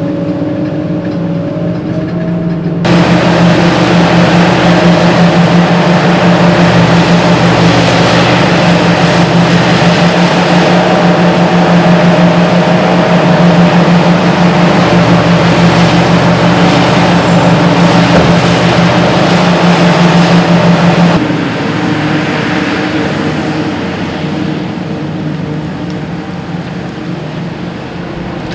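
Hitachi EX8000 mining face shovel's twin diesel engines running steadily. About three seconds in they rise sharply to a much louder, steady drone. That drone holds and then eases back about seven seconds before the end.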